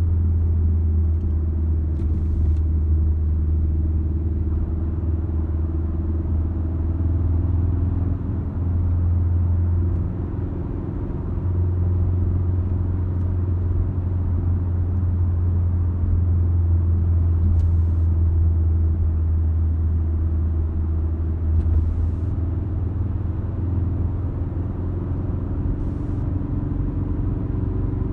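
Ford Focus RS cruising at about 50 mph, heard from inside the cabin: a steady low drone of engine and road noise, briefly quieter about ten seconds in.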